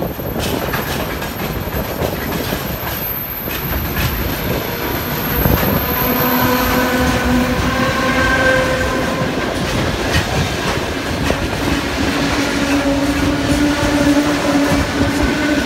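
Freight train of tank wagons rolling past, a steady rumble with wheel clatter over the rail joints. A steady droning tone joins about six seconds in and shifts slightly higher around twelve seconds.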